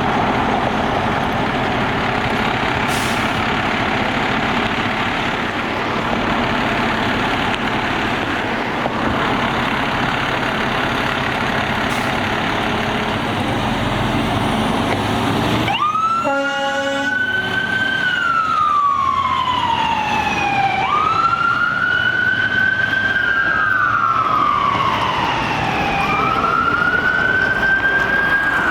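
Fire truck emergency warning devices. For the first sixteen seconds a loud, steady blare with no clear pitch. Then it switches abruptly to an electronic siren on wail, rising and falling slowly about every five seconds.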